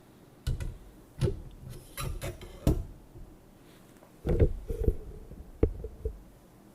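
Snare drum stand parts knocking and clanking as the stand is handled and fitted together: a run of sharp clunks, with a short metallic ring about four and a half seconds in.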